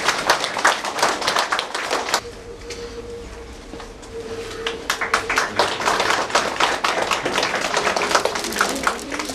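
Audience applauding, the clapping thinning out about two seconds in and picking up again about two seconds later.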